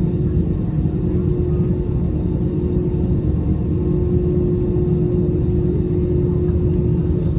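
Steady low rumble and hum inside the cabin of an Airbus A321 on the ground after landing, with a constant tone running through it.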